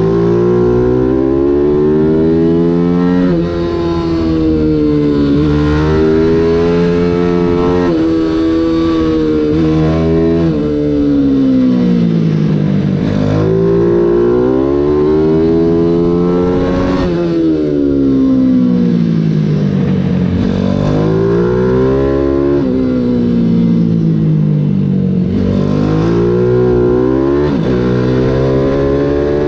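A 140cc mini GP race bike's engine, heard from on board, revving hard and climbing in pitch through the gears with quick breaks at each shift, then falling away in long drops as it slows for corners, over and over around the lap.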